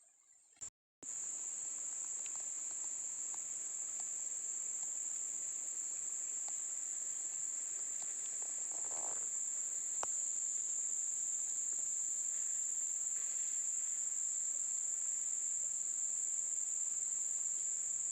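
Insects singing in one steady, unbroken, high-pitched trill that starts abruptly about a second in, with a few faint ticks beneath.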